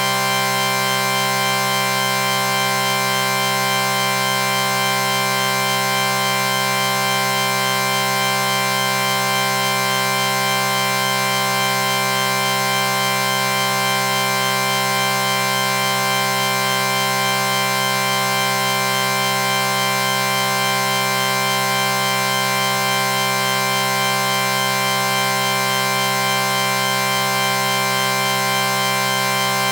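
A chord sound effect: several steady tones sounding together and held without any change in pitch or loudness.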